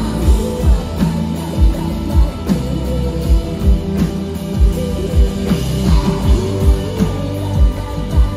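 Rock band playing live, electric guitars, bass and drum kit with a steady beat, and a singer's voice over it, picked up through the loud PA by a phone in the audience.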